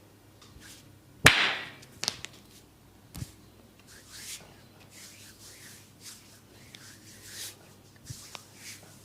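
Hand massage on the head and skin: one loud, sharp slap about a second in and two smaller slaps after it, then palms rubbing and swishing over skin, with a few light clicks near the end.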